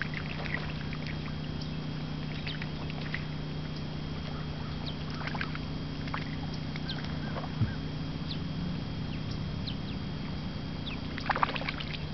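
A steady low drone with faint, brief chirps scattered over it and a small cluster of them near the end.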